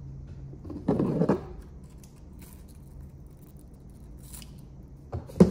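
Scissors snipping through green onion stalks several times, with the strongest cuts about a second in and near the end.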